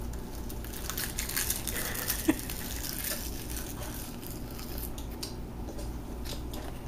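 A small child biting and chewing crisp sheets of Korean seasoned seaweed (gim), giving faint crackly crunches. The crunches come in a cluster over the first couple of seconds, with one louder click about two seconds in, and again late on.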